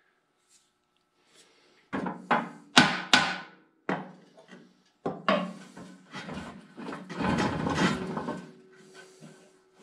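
Hammer blows on a Belsaw M-14 sawmill husk, trying to drive one side off its shafts: four sharp ringing strikes a couple of seconds in, one more knock, then a few seconds of dense knocking and scraping.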